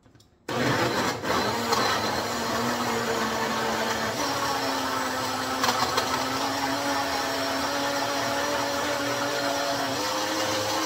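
A small single-serve blender switched on and running steadily, churning frozen fruit and greens, with a few knocks as it gets going; its motor pitch steps up a little about four seconds in.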